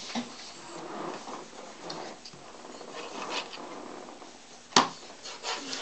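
Pencil scratching on paper as a young child tries to write, with a single sharp tap about five seconds in.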